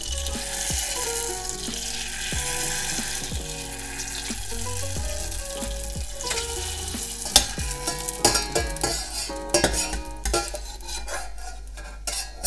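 Rice paper snippets frying in hot oil in a pot: an even sizzle. From about seven seconds in comes a run of sharp clicks and taps.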